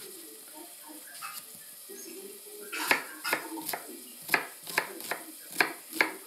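Kitchen knife chopping an onion on a plastic cutting board. After a quiet start, a run of about nine sharp chops begins almost three seconds in, two to three a second.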